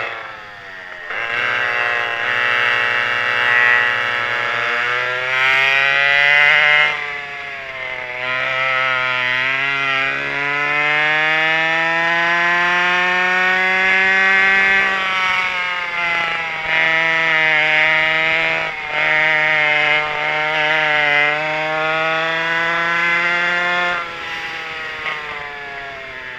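Twin McCulloch 5.3 cubic-inch two-stroke engines, converted chainsaw motors, pushing a vintage kart at race speed. Their pitch climbs on long pulls and drops as the throttle is lifted for corners: shortly after the start, about 15 seconds in, and again near the end.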